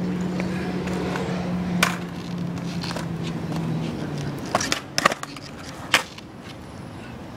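Skateboard wheels rolling on a concrete sidewalk with a steady hum that dies away about four seconds in. Sharp clacks of the board hitting the concrete come once near two seconds, then several in quick succession between about four and a half and six seconds, as in popping and landing a trick.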